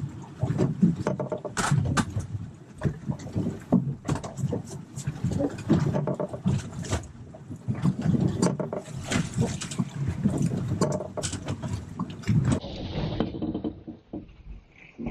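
Fast-forwarded on-deck audio of a wahoo being fought from an anchored boat: a rapid, choppy jumble of water, wind and handling knocks, quieter near the end.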